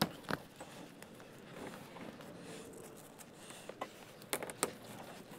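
Quiet scraping and rustling of insulated mini-split refrigerant lines being pushed through a plastic wall sleeve, with a few light taps near the start and again near the end.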